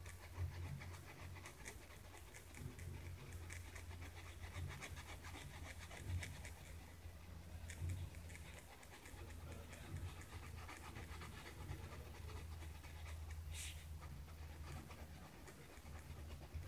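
Pen scratching on sketchbook paper in quick hatching strokes, coming in short clusters of rapid strokes with one louder scrape near the end, over a low steady hum.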